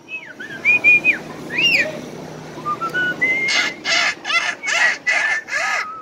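Caged myna calling: a few clear whistled notes that rise and fall, a short rising series of notes, then a quick run of about seven harsh calls, roughly three a second.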